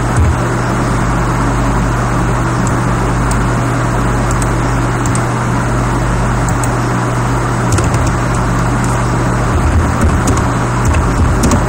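Steady loud noise with a constant low hum, and a few faint scattered ticks.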